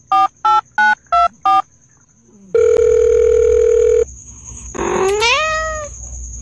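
Touch-tone phone keypad beeps, five quick tones in the first second and a half, timed to a finger poking a cat's nose. Then one steady beep lasting about a second and a half, and about a second later a cat's meow that rises in pitch and levels off.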